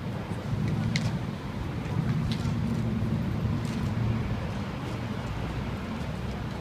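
City street traffic: a low steady rumble that swells for a few seconds and then eases, with a few faint clicks.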